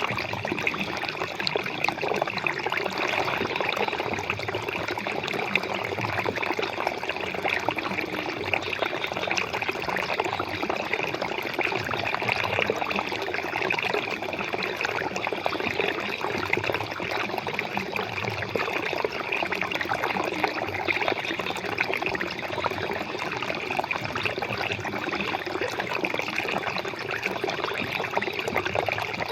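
Flowing water running steadily and evenly, without a break.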